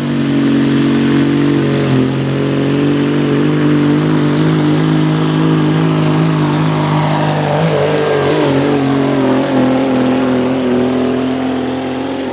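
Diesel semi-truck engine pulling a sled at full load, with a high turbocharger whistle that rises over the first few seconds and then holds steady. Past the middle the engine note sags lower as the sled's growing weight drags it down.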